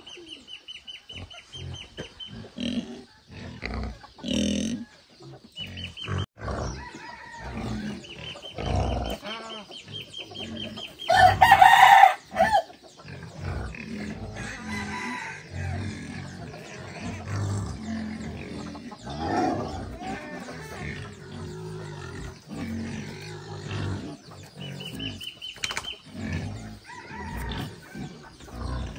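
Chickens clucking, with one loud rooster crow about eleven seconds in, the loudest sound.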